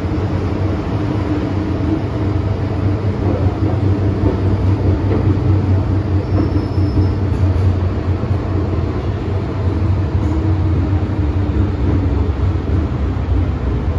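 MTR M-Train heard from inside a car, a steady rumble of wheels and running gear with a low hum, as the train runs from a tunnel alongside a station platform.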